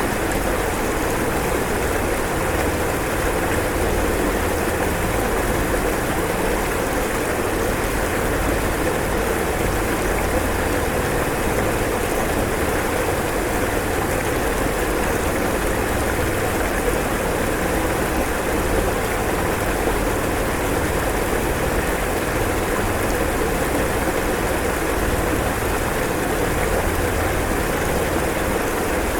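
Rushing floodwater: a steady, unbroken roar of fast-moving muddy water.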